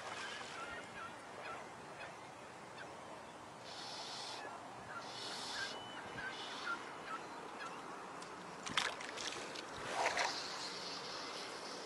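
Quiet waterside ambience with scattered faint bird calls. There are a few short hissing swishes, and about ten seconds in comes a louder noisy tear as a spey fly line is lifted off the water on a cast.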